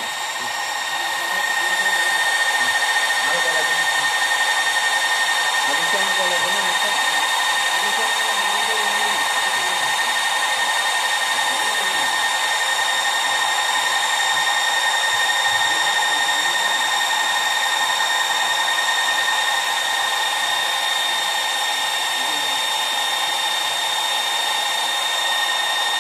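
Small electric cooling fan running steadily: an even whirring rush with a thin, steady high whine, louder from about a second and a half in.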